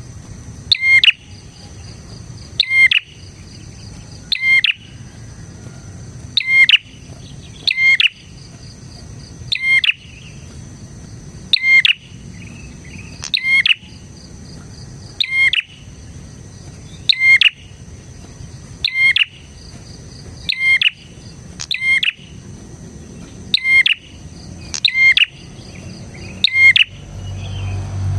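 Prenjak (prinia) calling over and over: short, sharp, high chirping phrases, one about every one and a half to two seconds, over a steady faint high-pitched hum.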